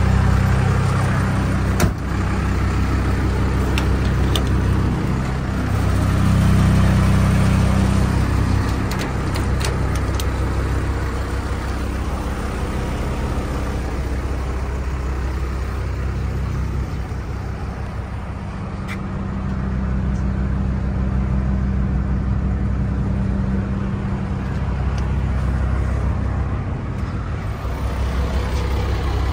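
The truck's 5.9 Cummins inline-six diesel idling steadily. Its low, even drone eases slightly around the middle and comes back up near the end.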